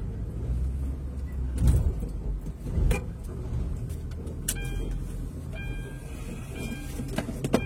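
A vehicle running at low speed, heard from inside the cab: a steady low engine and road rumble with a few knocks and rattles. In the second half a short electronic beep sounds on and off a few times.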